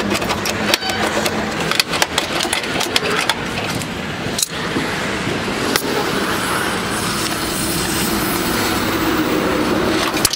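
Stick-welding arc crackling and spitting in irregular bursts on the car's steel rocker panel, cut off abruptly after about four and a half seconds, followed by a steady vehicle engine hum.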